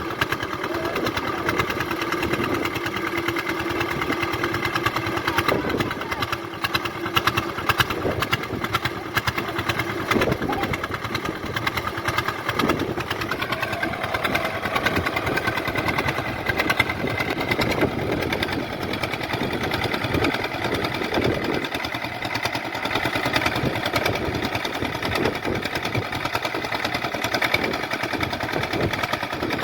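Swaraj 855 tractor's diesel engine running steadily with a rapid, even knock as the tractor is driven.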